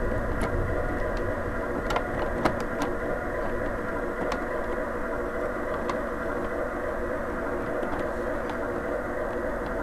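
Large-scale garden-railway train rolling slowly on brass track: a steady whir of the model's electric drive and wheels, with a few light clicks.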